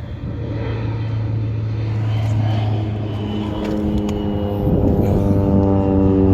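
A motor engine running steadily, its hum growing louder, with a higher droning tone joining in a little past three seconds in.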